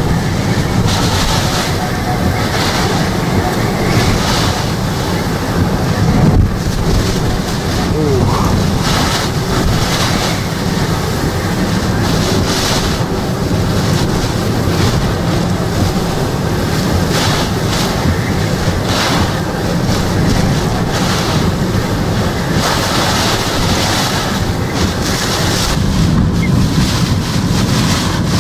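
Hurricane-force wind and heavy rain: a loud, steady rush of noise, with wind buffeting the microphone.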